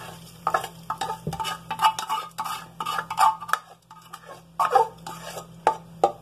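A plastic ladle scraping fried garlic and onion out of a small metal pan into a pot of cooked lentils: irregular scrapes and clicks of utensil against metal, with a few sharper knocks near the end.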